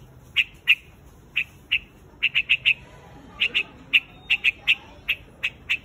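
A bird known in Vietnamese as the white-headed quạch mốc calling to its flock: a string of short, sharp call notes, some single and some in quick runs of three or four, about seventeen in all.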